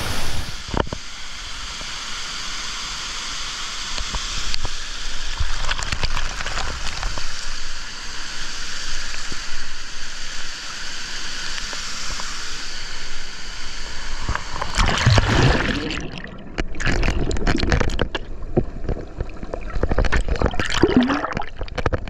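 Rushing waterfall water close to the microphone, a steady roar of white water. About fifteen seconds in it turns uneven, sloshing and gurgling as the camera dips in and out of the water.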